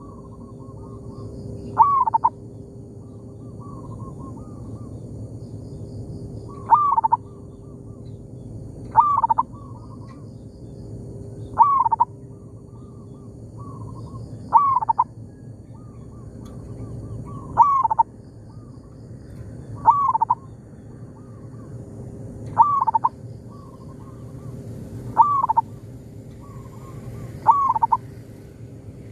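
Zebra doves (perkutut) cooing: a loud short coo phrase repeats about every two and a half seconds, with fainter coos between them from another dove answering.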